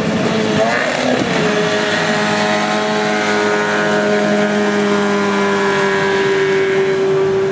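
Racing power dinghy's outboard motor running at high revs through whitewater rapids. The pitch swings up and down for about the first second, then holds a steady high note over the rush of the water.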